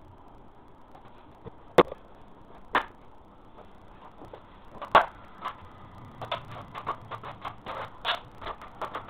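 Sharp knocks and clicks, a few spaced out at first, then a quicker irregular run of light taps near the end.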